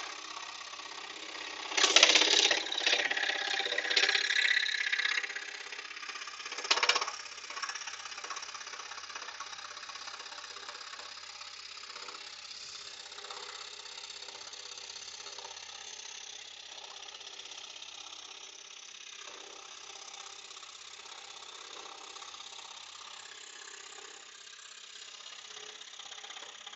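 Axminster Professional AP535SS scroll saw running, its blade reciprocating steadily as it cuts through a thick wooden blank with a steady buzzing rattle. About two seconds in the cut is louder and rougher for a few seconds, with another short loud burst about seven seconds in.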